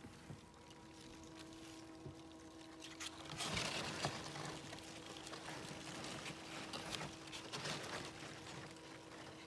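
Cardboard egg-crate flats rustling and scraping as they are lifted and shifted in a roach bin, with scattered crackles. The handling starts about three seconds in, over a steady low electrical hum.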